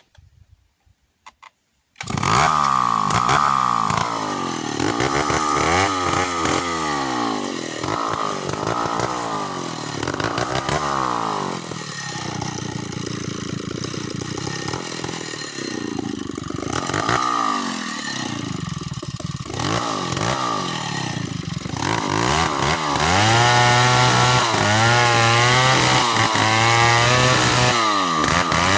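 Chainsaw engine starting suddenly about two seconds in after a few faint clicks, then revved up and down over and over. It runs at steady high revs from about two-thirds of the way through.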